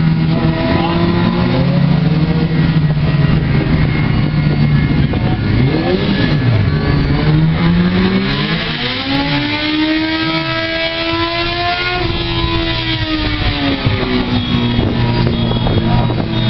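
A motorcycle engine revving. Its pitch climbs over about a second near the middle, holds high for a few seconds, then falls back.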